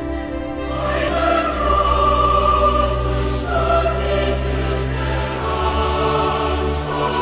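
Background music with a choir singing long held notes over low sustained tones, swelling fuller about a second in.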